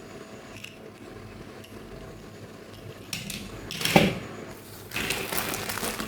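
Small plastic toy figures and their packaging being handled: rustling, with a sharp knock about four seconds in and more rustling near the end.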